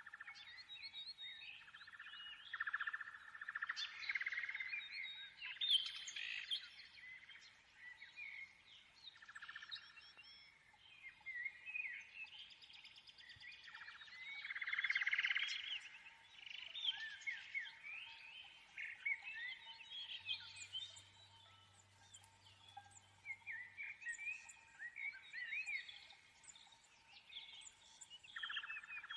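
Birds chirping and twittering in a dense stream of short rising and falling calls, over a faint steady hum.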